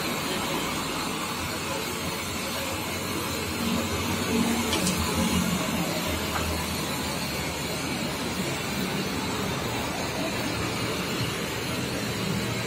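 Gas blowtorch flame hissing steadily as a length of cane is held in it and heated for bending.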